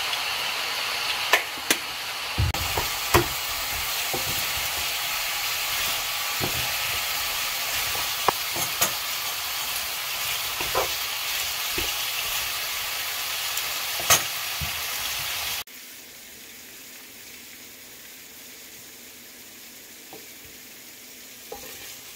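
Chicken drumsticks sizzling in a frying pan as their soy-based sauce reduces to a glaze, with a wooden spatula stirring and knocking against the pan now and then. About two-thirds of the way through, the sizzle drops suddenly to a much quieter hiss.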